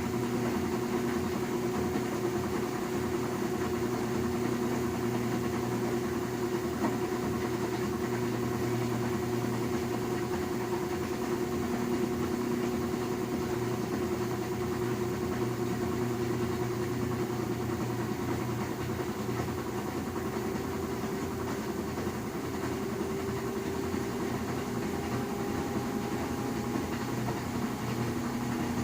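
LG washing machine running with a steady mechanical hum and whine, its pitch creeping slightly upward in the last several seconds. It is a noise the owner was told is "normal" and disputes.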